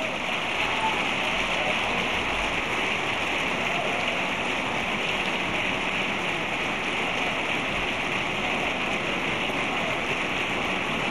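A large audience applauding: many people clapping at once in an even, steady wash of noise that swells just before and then holds at one level.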